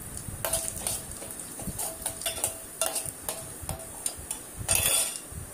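Steel ladle stirring fennel and mustard seeds in hot oil in an aluminium pot. It clinks and scrapes against the pot about a dozen times, some strikes leaving a short metallic ring, over a faint sizzle of frying oil.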